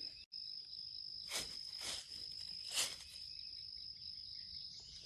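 Insects droning steadily in woodland, with three brief rustling scrapes over about a second and a half.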